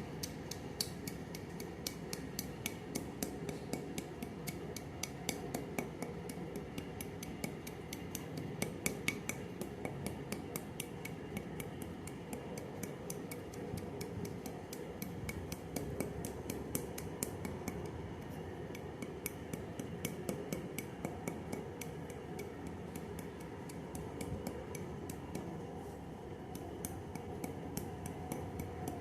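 Dry clay being crushed into powder: a rapid, irregular run of small crisp cracks and crumbles over a steady low rustle.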